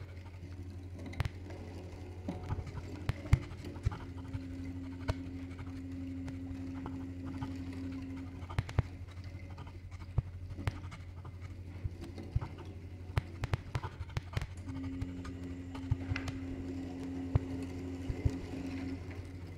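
Sparse experimental improvised music of percussion, electronics and field recordings: a steady low hum under scattered light taps and scratches. A held tone comes in twice, for about four seconds each time.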